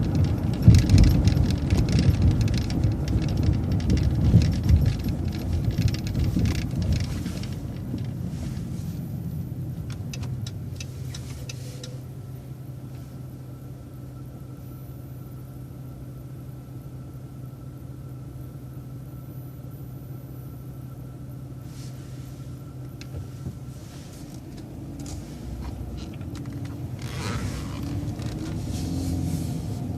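Transit bus heard from on board. For the first several seconds it is moving, with road rumble and rattling. It then idles with a steady hum while stopped, and near the end the engine revs up as it pulls away.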